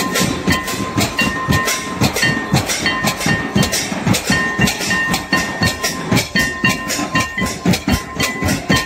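Hand-played barrel drums beating a fast, uneven dance rhythm, with a thin, high, steady tone held above it that breaks off and returns.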